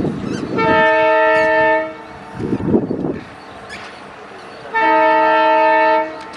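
Indian Railways locomotive horn sounding two blasts about four seconds apart, each a little over a second long with several tones at once. There is a short rumble between the blasts.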